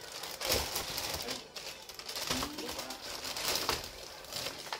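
Plastic bag crinkling and rustling in quick little clicks as puppies tug and chew at it, with a couple of short puppy grunts.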